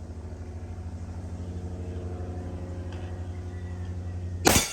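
A steady low mechanical hum, then near the end a single very loud Desert Eagle .50AE pistol shot.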